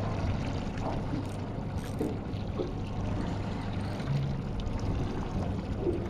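A small boat's motor running at low speed with a steady low hum, while water trickles and laps around it, with a few faint knocks.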